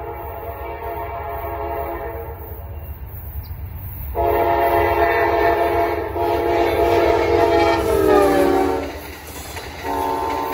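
A locomotive's multi-chime air horn plays a long series of blasts. A held chord gets louder about four seconds in and breaks briefly. The chord then slides lower in pitch, stops, and sounds again at the lower pitch near the end, over the low rumble of the train.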